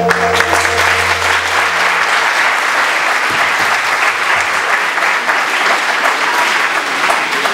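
Audience applauding, a steady dense clapping throughout. A low held note of the backing music underneath cuts off about two seconds in.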